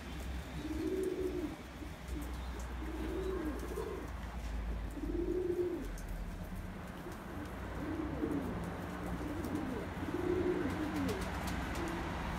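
Domestic pigeons cooing, a low rolling coo repeated about every two seconds.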